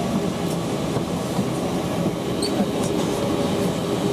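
Airbus A319 passenger-cabin noise while taxiing: the steady hum of the jet engines at low thrust, mixed with the rattling rumble of the airliner rolling over the pavement.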